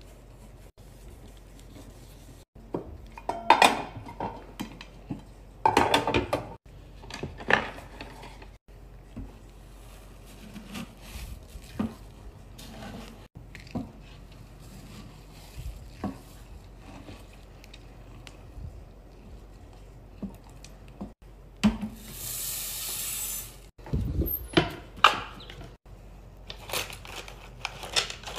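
Wax-warmer handling: knocks and clatter from the warmer's metal pot and its lid, and a wooden spatula stirring hard-wax beads in the pot. A brief steady hiss sounds about three quarters of the way through.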